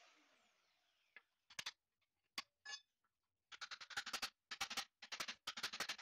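An angle grinder winding down after a cut, then sharp taps and knocks on the steel shell of a large Copeland scroll compressor: a few single hits, then quick clusters of rapid strikes in the second half.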